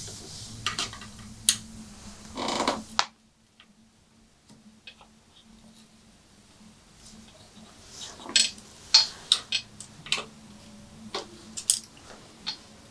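Small metal clicks and taps of a hex key being fitted and turned in a bottom bracket lock ring, tightening a mid-drive motor's spindle. The clicks come in scattered clusters, with a near-silent gap of a few seconds after the first three.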